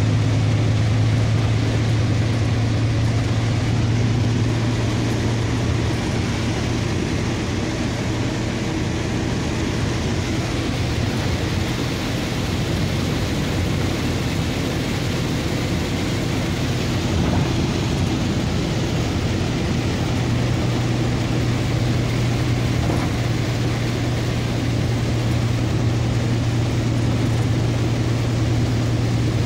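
Steady drone of a vehicle driving on a rain-soaked highway, heard from inside the cab: a constant low engine hum under an even hiss of rain and tyres on the wet road.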